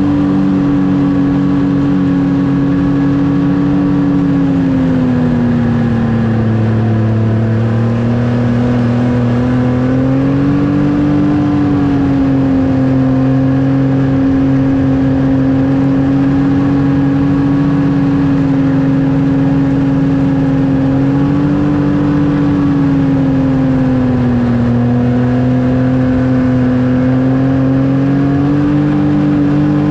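Snowmobile engine running steadily at trail speed. Its pitch eases down and climbs back up twice, about a fifth of the way in and again about three-quarters through, as the throttle is let off and opened again.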